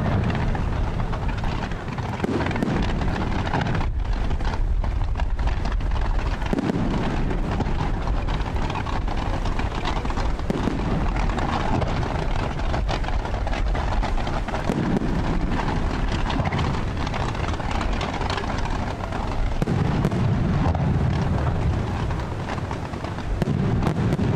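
Fireworks display: aerial shells and low-level mines firing in a near-continuous barrage of booms and crackling, the deep rumble swelling every few seconds.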